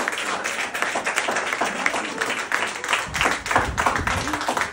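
A small group of people applauding, hands clapping quickly and unevenly, with a low rumble from about three seconds in.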